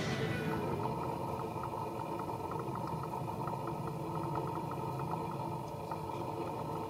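Steady hum of a running engine with faint, regular ticks over it.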